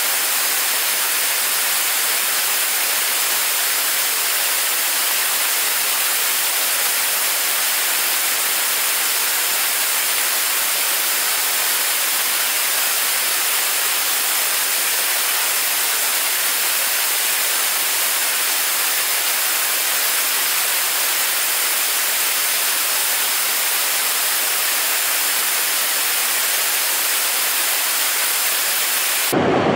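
A 75-ton-class kerosene–liquid-oxygen rocket engine firing steadily on a test stand, heard as a loud, even hiss with no low rumble. About half a second before the end the sound turns abruptly deeper and fuller.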